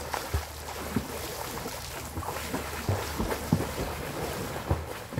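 A swimmer kicking and stroking through pond water, making a series of irregular splashes over a steady hiss.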